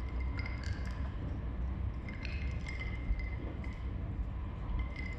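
Ice cubes clinking against a glass, several light chinks with a short ringing tone, over the steady low rumble of the Thunderbird limited express train running.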